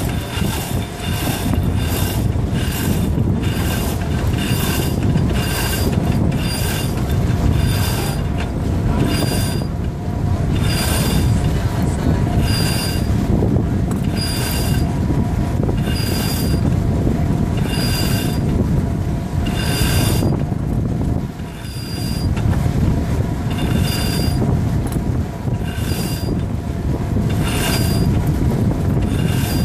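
Sailboat mast winch and halyard squealing in a steady rhythm, roughly once a second with each stroke, as the mainsail is winched up. Constant low wind rumble lies underneath, with a brief lull a little after the middle.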